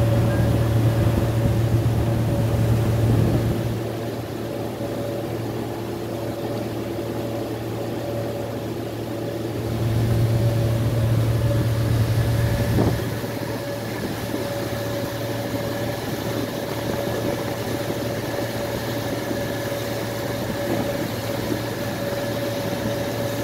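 A small boat's engine running steadily underway: a low hum with a fainter, higher steady whine over it. It is louder for the first few seconds and again from about ten to thirteen seconds in, with a hiss of wind and water throughout.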